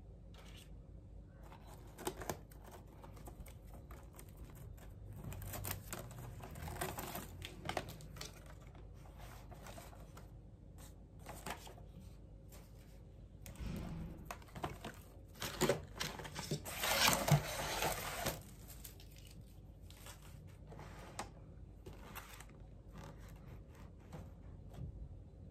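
Paper rustling and light knocks as white cardboard pastry boxes and a printed paper sheet are handled and opened by hand. Scattered taps throughout, with the loudest rustling about two-thirds of the way through.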